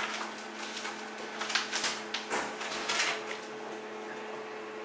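Plastic bags rustling and light knocks as packs are handled at a stainless-steel chamber vacuum sealer, a string of short separate noises over a steady low hum.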